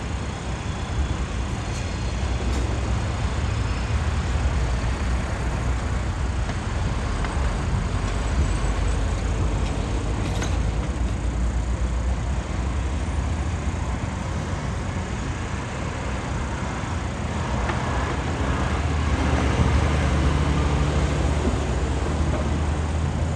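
Road traffic passing close by over a steady low diesel engine drone. A vehicle going past makes it loudest about three-quarters of the way through.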